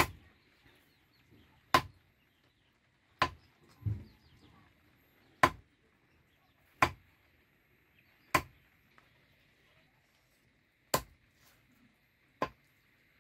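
A heavy knife chopping raw chicken on a wooden log block: about eight sharp single chops, spaced a second or two apart and irregular.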